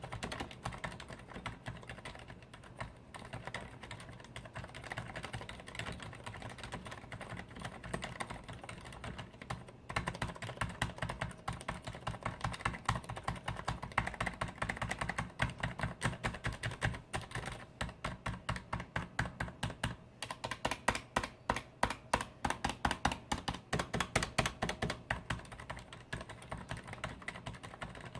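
Fast typing on a Leopold FC980M mechanical keyboard with Cherry MX Silent Red switches; the dampened switches give muted clacks instead of the usual sharp mechanical clatter. The keystrokes run as a dense continuous stream, then become a steady, evenly paced run of harder, louder strokes in the second half.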